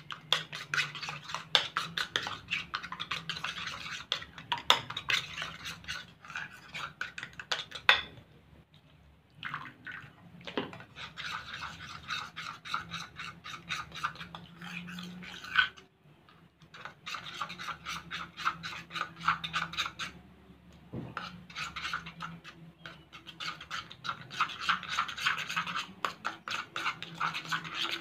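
Metal spoon stirring white glue slime mixture in a ceramic bowl, scraping and clicking rapidly against the bowl. It goes in four long bouts with short pauses between them.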